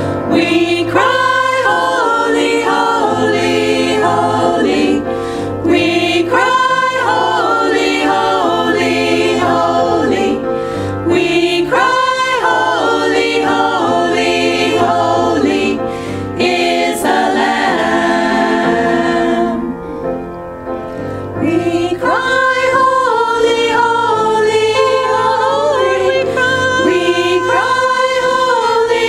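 A small women's vocal ensemble singing a sacred song together in harmony, in long held phrases, with a short quieter break about two thirds of the way through.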